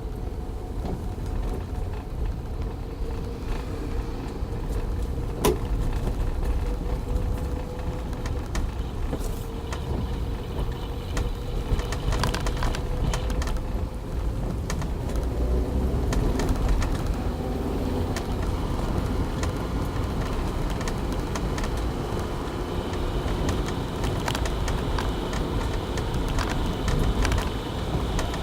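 Toyota Avanza with manual transmission on the move: steady low engine and road rumble, with a faint whine that slowly falls in pitch over the first ten seconds or so.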